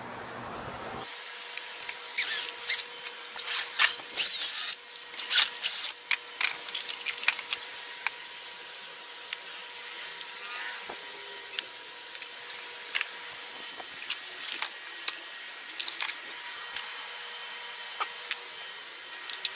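Tools and small hardware being handled: a busy run of clicks, clatters and rattles with a short loud rasp about four seconds in, thinning out to scattered ticks.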